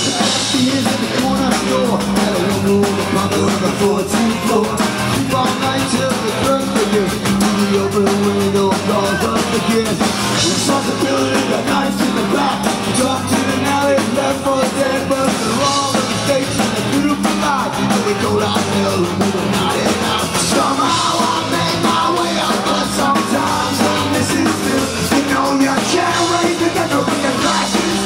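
Punk band playing live and loud, with electric guitars, bass guitar and drum kit under sung vocals.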